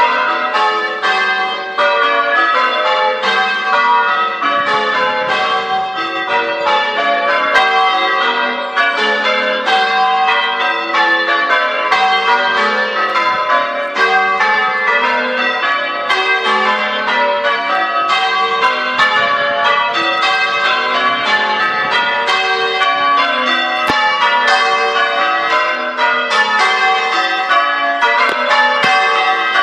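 Church tower bells being change rung: the bells strike one after another in a steady, unbroken run of changes, each note ringing on into the next.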